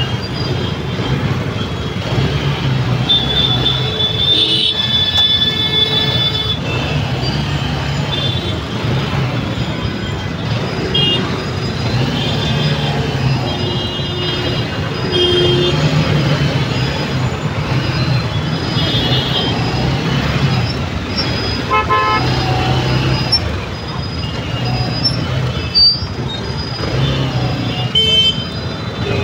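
Congested road traffic heard from a two-wheeler in the jam: engines humming throughout and vehicle horns honking again and again, some in short toots and some in longer blasts.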